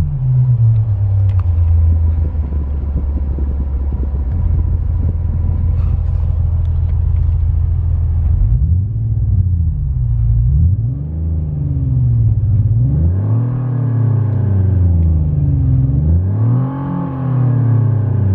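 Artificial engine sound from Renault's R-Sound Effect app, played through a Renault Clio's speakers. It starts as a steady low drone, then from about eight seconds in its pitch climbs and falls several times like an engine being revved.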